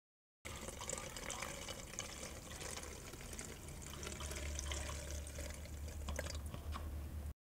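Liquid pouring steadily into a tank: chain oil being filled into a chainsaw's chain-lubrication oil tank. It starts abruptly about half a second in and cuts off abruptly near the end.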